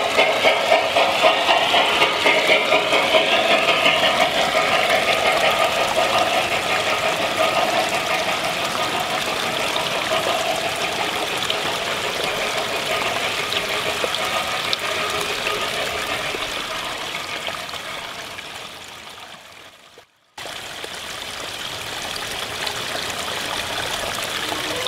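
G scale model train running past on garden-railway track, with a rhythmic beat at first that fades within a few seconds into a steady rushing hiss. The sound drops out suddenly for a moment about twenty seconds in.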